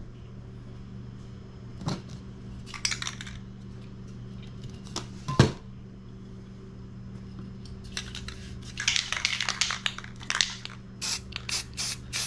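Aerosol spray paint can sprayed in short hissing bursts: a brief one about three seconds in, a choppy run past the middle and rapid quick spritzes near the end. Metal spray cans knock as they are picked up and set down, the loudest about five seconds in, over a steady low hum.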